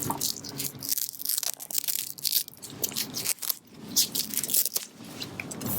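An EV charging cable being untied and handled, with irregular scratchy rustling and crackling as its strap and covering are worked loose.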